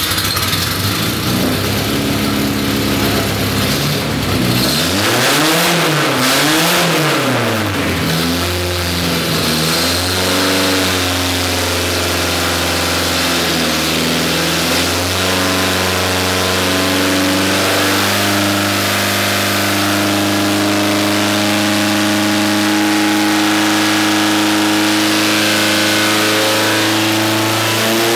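Volvo B230 inline-four engine running on an engine dynamometer, revved up and down several times, then held and brought up slowly and steadily in revs under the dyno's load.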